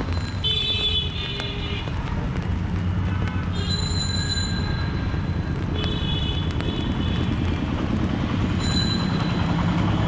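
Busy street traffic in the rain: a steady wash of rain and engine noise, with vehicle horns honking four times, each for about a second.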